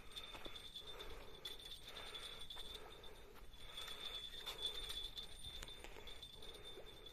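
Spinning fishing reel being cranked while a hooked fish is reeled in, a soft swelling-and-fading whirr repeating with each turn. A steady high-pitched whine runs through it.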